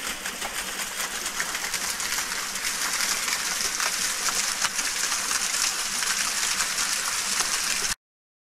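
A small waterfall trickling and splashing down a rock face onto stones, a steady, hissing patter. It cuts off abruptly to silence near the end.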